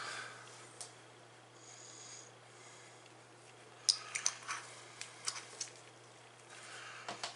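Light clicks and taps of a small glass paint bottle being handled and tipped over a plastic mixing cup, clustered about four to five and a half seconds in, over a steady low hum.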